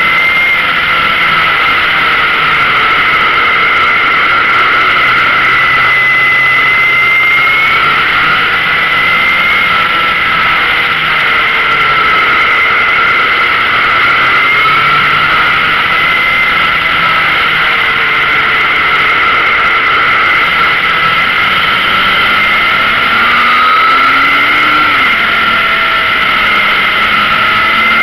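Yamaha XJR motorcycle riding at road speed: a loud, steady rush of wind and road noise with a steady high whine, over an engine whose pitch drifts up and down with the throttle, climbing steadily near the end before dropping sharply.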